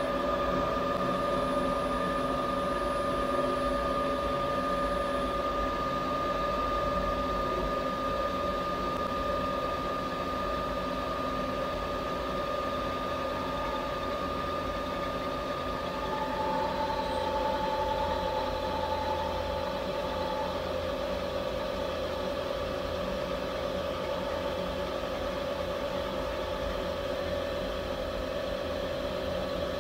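CNC milling machine spindle running at 1000 rpm with an end mill feeding through machinist wax: a steady machine whine made of several tones. One of the higher tones drops out about 16 seconds in, and another briefly sounds for a few seconds after.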